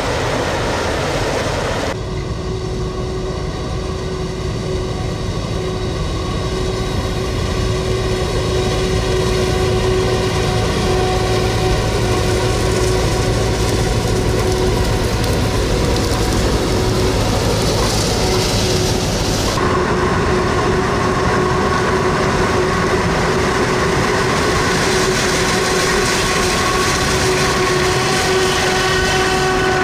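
Claas Jaguar 990 forage harvester running under load while chopping maize: a loud, steady machine drone with a constant hum. The sound changes abruptly twice, about two seconds in and again a little past the middle.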